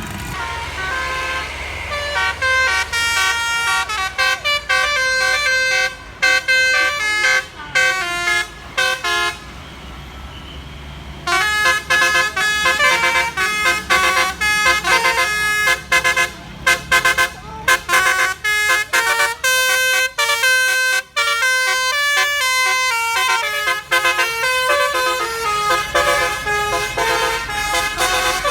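Indonesian bus 'basuri' telolet horn, a set of musical air horns, playing a quick tune of stepped notes. It breaks off briefly about ten seconds in, then starts playing again.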